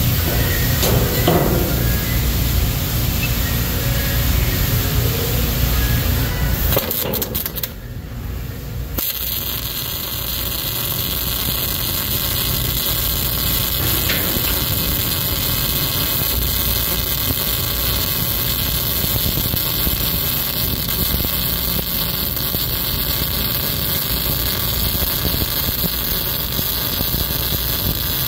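Arc welding: a welding arc burning steadily with an even hiss as a bead is laid, starting about nine seconds in after a brief lull. Before the lull a steady low rumble runs.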